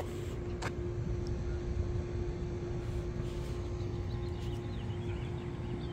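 Steady low outdoor rumble with a constant mid-pitched hum running through it, a couple of faint clicks near the start and faint high chirps in the middle.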